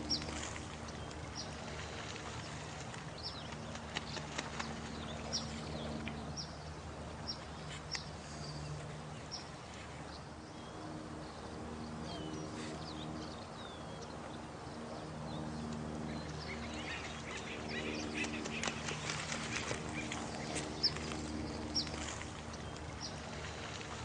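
Night nature soundscape: short high chirps about once a second over low, steady droning tones, with a spell of rapid clicks and rustling about two-thirds of the way through.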